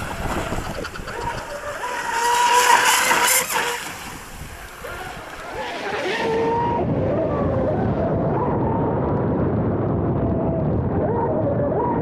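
Electric radio-controlled F1 racing boat running at speed: the wavering whine of its brushless motor and propeller over rushing water and spray, loudest about two to three seconds in. About six seconds in it is heard from on board the hull, a duller, steadier whine with water noise.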